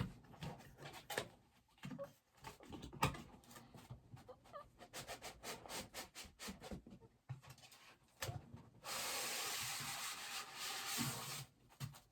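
A bobblehead's cardboard box and packaging being opened by hand: scattered rustles, taps and scrapes, then a steady rub lasting about two and a half seconds near the end.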